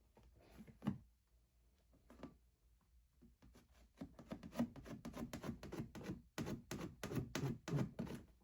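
Inflated silicone paw mitts rubbing and scraping against hands as they are worked on: a few separate rubs at first, then from about halfway a quick run of short rubbing strokes, several a second.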